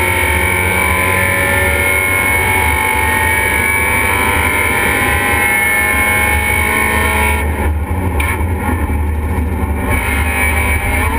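Race car engine running hard, heard from inside the stripped cockpit along with wind and road noise. About seven and a half seconds in the sound dips and turns rougher for a couple of seconds, then a rising note near the end shows the revs climbing again.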